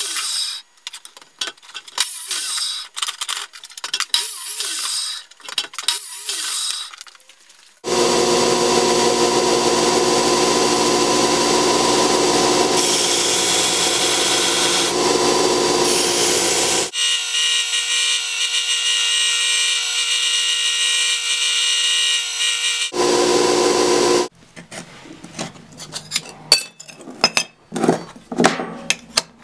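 Metalworking on thin steel plate. A run of sharp metallic clicks and scrapes comes first. Then from about a quarter of the way in, a belt grinder runs steadily for about fifteen seconds grinding the steel, its sound changing twice along the way. After it stops, light scraping and tapping comes back as the steel pieces are handled and scribed.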